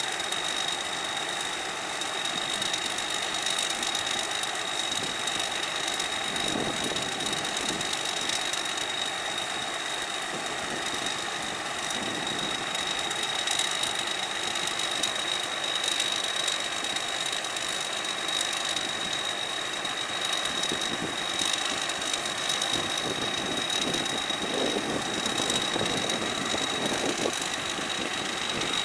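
Combine harvester running steadily while unloading harvested rice into a truck, with a constant high-pitched whine over the engine noise.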